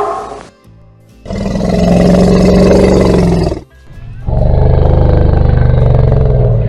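Elephant giving two long, low roaring calls, each about two seconds long, with a short pause between them.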